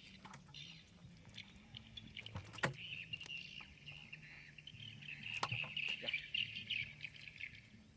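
A high, continuous chirring call from an animal in the surroundings, starting about three seconds in and running for about five seconds, with a few sharp clicks or knocks over it.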